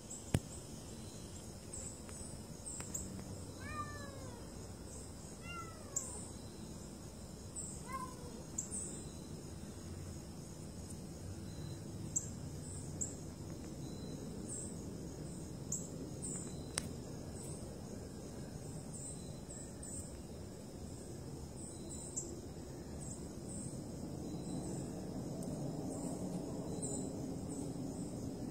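A cat meows three times, short calls that fall in pitch, between about four and eight seconds in. Under it run a steady high insect drone and short high chirps.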